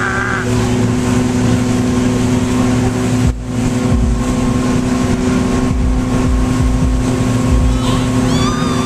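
Motorboat engine running steadily at speed while towing, with the rush of the wake and wind buffeting the microphone in uneven low gusts.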